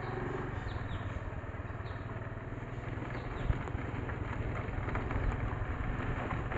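Motor scooter engine running steadily while riding along a road: a low steady hum under road noise.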